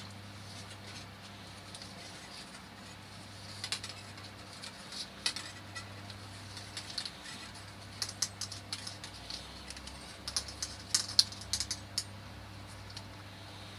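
Irregular small metallic clicks and ticks as the coiled steel recoil spring of a Stihl TS400 cut-off saw's starter is wound by hand into its housing, starting about four seconds in and coming thickest and loudest near the end, over a faint steady hum.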